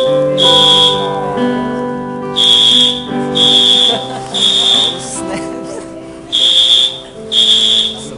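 Building fire alarm horn sounding in repeating groups of three loud, high blasts, about one a second with a pause after each group: the temporal-three evacuation signal. Held notes of the song's music carry on underneath.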